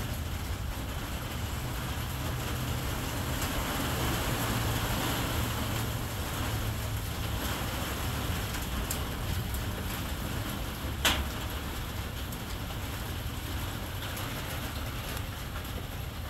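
Steady low hum with an even hiss, and one sharp click about eleven seconds in.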